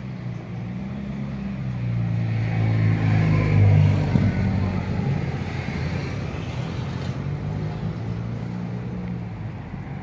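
A motor vehicle's engine running with a low hum that grows louder to a peak three to four seconds in and then slowly fades, as a vehicle going by does.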